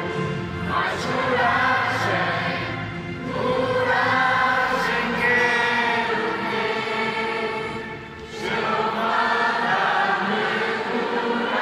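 A huge audience singing a hymn together in Portuguese, thousands of voices at once. The singing dips briefly between phrases, about three seconds in and again about eight seconds in.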